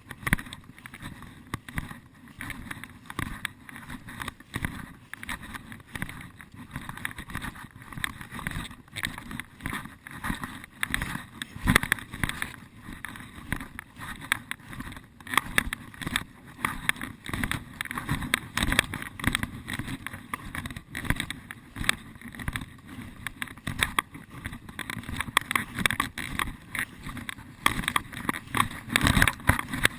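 Footsteps crunching and rustling through dry forest undergrowth: a dense, irregular run of crackles and brushing noises.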